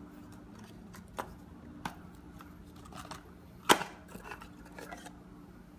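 Thick, hard clear plastic display case being handled and pried open: scattered clicks and taps of plastic on plastic, with one sharp snap a little past halfway.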